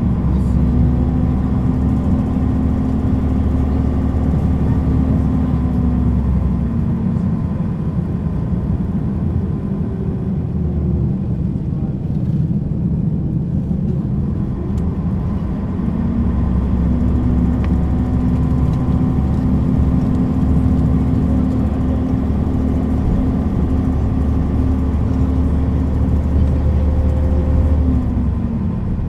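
MAN railbus (Schienenbus) underfloor diesel engine idling at standstill: a steady low drone that eases off for several seconds in the middle and then picks up again.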